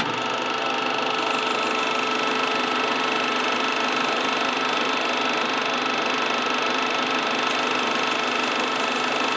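Electric lathe motor switches on abruptly and runs at a steady speed with a constant whine, spinning the rod while its cork grip is sanded.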